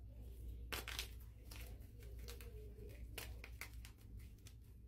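Blue-dyed gym chalk block crunching and crumbling between the fingers: a quick, irregular run of sharp crackles and snaps, loudest about a second in, as the block gives way easily. A steady low hum runs underneath.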